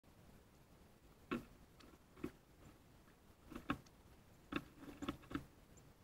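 About eight short, sharp taps and clicks at irregular intervals, some in quick pairs, over a quiet background.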